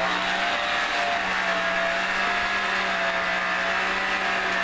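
Small electric motor and gear train of a vintage corded remote-control toy tractor running steadily, a constant whirring hum with a slightly wavering whine above it.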